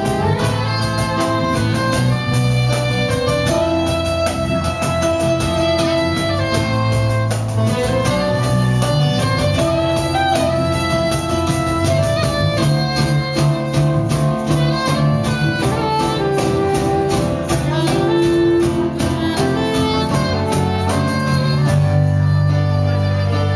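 Live band playing a pop song: electric bass and guitars over a steady beat, with a melody held in long notes.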